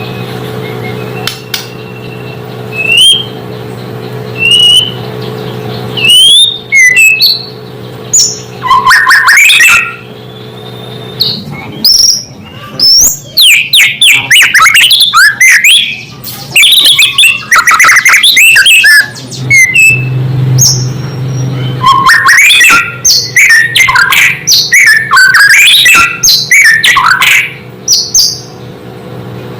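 White-rumped shama (murai batu) singing: a few separate clear whistles at first, then a long run of rapid, varied whistled phrases and chatters with a short pause near the middle. A steady low hum runs underneath.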